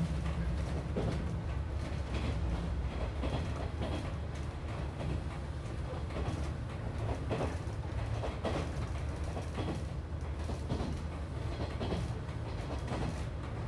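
Inside a moving train carriage: a steady low rumble of wheels on rail, with irregular clicks and creaks from the wheels and carriage.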